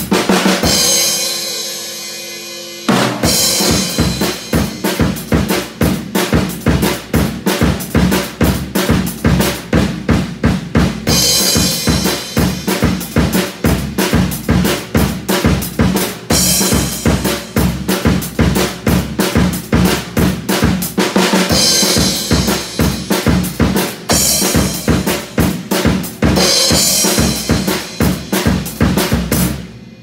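Acoustic drum kit played in a steady pop groove of kick, snare and Paiste PST cymbals. It opens with a ring that fades away over about two seconds. The beat comes back in about three seconds in, with several brighter stretches of heavy cymbal playing, and stops suddenly at the end.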